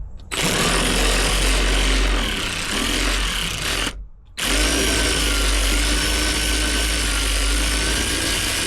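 Cordless drill driving out a long screw, running steadily with a whine, stopping briefly about four seconds in, then running again.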